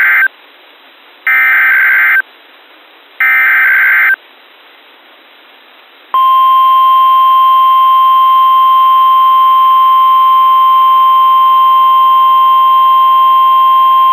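NOAA Weather Radio SAME header: the end of one burst of warbling digital data tones, then two more identical one-second bursts about two seconds apart. After a short gap, about six seconds in, the steady 1050 Hz NWS warning alarm tone starts and holds, marking the start of the weekly test.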